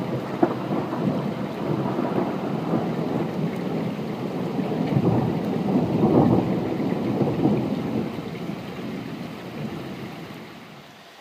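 A long roll of thunder that swells to its loudest about six seconds in, then rumbles away and fades out near the end.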